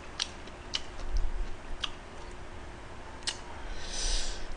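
A few light, separate clicks of wooden chopsticks on a dish as a piece of spicy pork cutlet is picked up, with quiet eating sounds between them. A soft breathy hiss comes near the end.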